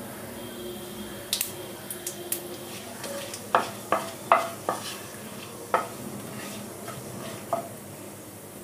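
Whole cumin seeds, bay leaves and dried red chillies sizzling steadily in hot mustard oil in a kadai, while a wooden spatula stirs them. From about three and a half seconds in, the spatula knocks and scrapes against the pan several times, with one more knock near the end.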